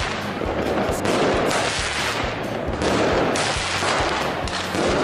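Firecrackers and fireworks going off in a dense, continuous barrage of rapid, overlapping bangs and crackles.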